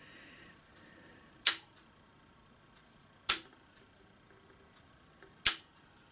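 Three sharp single clicks, about two seconds apart, over faint room tone.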